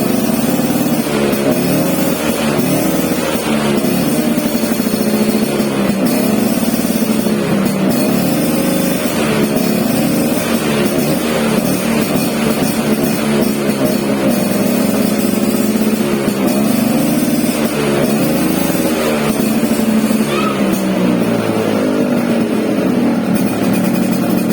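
Engine being warmed up after a week unstarted, its pitch rising and falling repeatedly as it is revved, mixed with background music.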